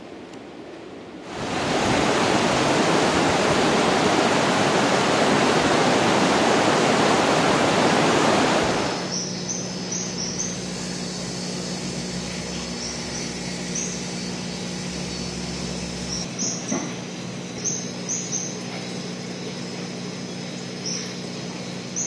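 Orosi River water rushing, a loud steady hiss that starts about a second in and cuts off about nine seconds in. After it comes a quieter night background: a steady low hum with short, high chirps repeating now and then.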